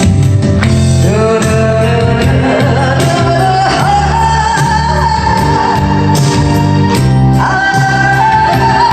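A woman singing a slow Korean ballad, holding long notes with vibrato, over an instrumental accompaniment with a steady bass line.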